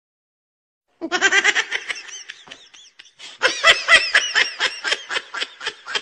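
High-pitched laughter in quick, squealing pulses, starting about a second in, pausing briefly, then resuming faster and louder.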